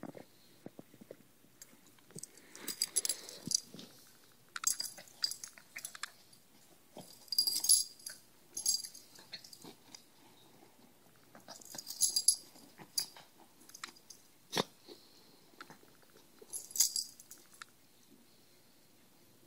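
Dog scratching itself on the floor in short bouts, each a burst of high jingling, about six times, with a single sharp knock near the middle.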